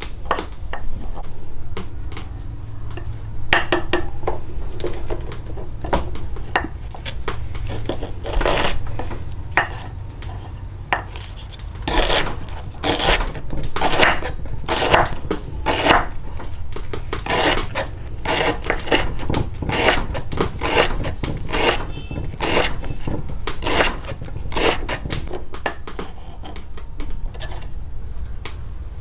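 Kitchen clatter: pots, dishes and metal utensils knocking and scraping together in irregular clinks and knocks, some ringing briefly.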